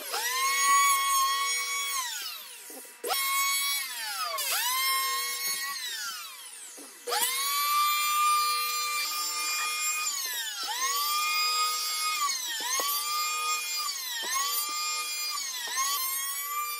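Electric hand planer cutting pallet-board planks. Its high motor whine sags in pitch each time the blades bite into the wood and climbs back as it frees up. Twice, near the start, it winds down and starts up again.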